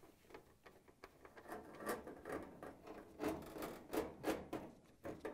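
Faint, irregular scraping and clicking of a hand-held quarter-inch nut driver turning screws into a dryer's sheet-metal rear access panel.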